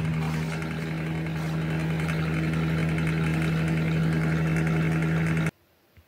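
Fan heater's blower motor and fan running steadily with a strong low hum and a rush of air. It stops abruptly near the end.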